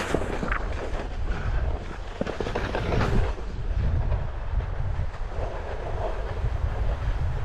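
Snowskate deck sliding over rutted, packed snow while being pulled uphill on a rope tow: a continuous scraping rumble, with a few sharp clicks and knocks in the first three seconds and wind buffeting the microphone.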